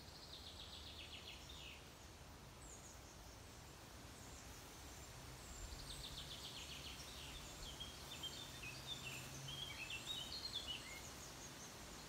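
Songbirds singing in summer woodland: a rapid trill that falls in pitch, near the start and again about halfway through, then a run of varied high chirps. There is faint steady background noise underneath.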